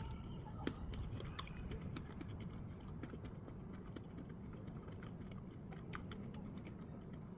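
Close-up chewing of a chewy sticky-rice-batter hot dog with a big sausage: a string of small, irregular clicks and mouth smacks.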